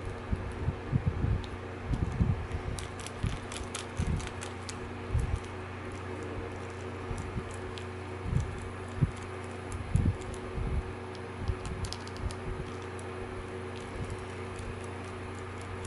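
Small, scattered clicks and ticks from a micro screwdriver driving tiny screws into a camera's new lens and CCD assembly, with soft bumps of fingers handling the parts, over a steady low hum.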